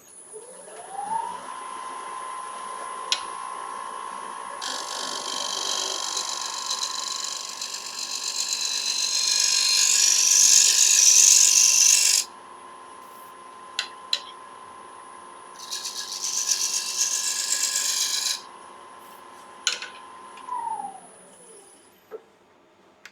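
A wood lathe spins up to a steady whine, and a scraper cuts the spinning Iroko bowl in two passes, a longer one of about seven seconds and then a shorter one of about three. A few sharp clicks fall between the cuts, and the lathe winds down near the end.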